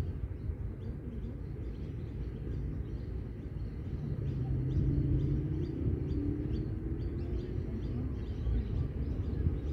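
Outdoor park ambience: a steady low rumble with small birds chirping throughout. A passing engine hum rises out of it from about four to seven seconds in, then fades.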